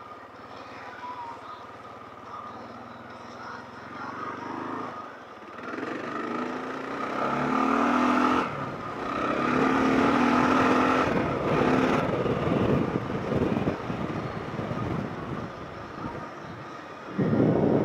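Kawasaki KLR650's single-cylinder four-stroke engine running while riding. It picks up and grows louder about four to eight seconds in, holds strong for several seconds, then eases off, with a brief louder rush near the end.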